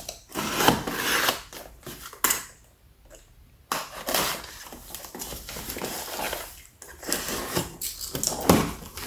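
A cardboard box being opened and its packaging handled: irregular rustling, scraping and knocks, with a short quiet spell about three seconds in.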